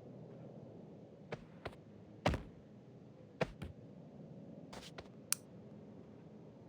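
About eight sharp, irregularly spaced clicks and knocks over a low steady background hum. The loudest comes a little over two seconds in.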